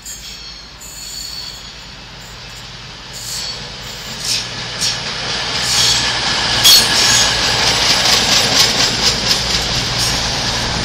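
CrossCountry Class 220 Voyager diesel-electric multiple unit passing through the station, its engine hum and wheel-on-rail noise growing loud as it draws level. A rapid run of sharp wheel clicks comes from about four seconds in.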